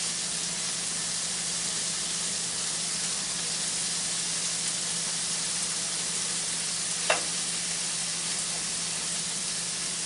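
Cut-up ham frying on a griddle: a steady sizzle over a faint low hum, with one short clink about seven seconds in.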